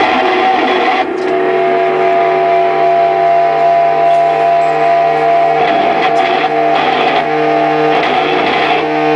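Live noise music: a loud, dense wall of distorted amplified noise with several steady droning tones held underneath, shifting slightly a few times.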